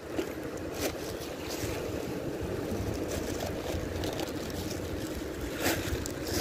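Wind buffeting the phone microphone over a steady wash of sea surf, with a few brief handling rustles; the loudest is a short plastic-bag rustle near the end.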